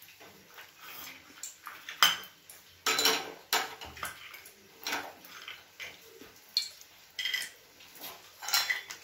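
Steel kitchenware clinking and knocking: about seven separate sharp metal strikes with a short ring, scattered a second or so apart.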